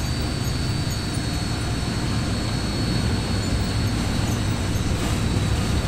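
A car engine running at low revs, a steady deep rumble that grows a little louder near the end, with a constant thin high-pitched whine behind it.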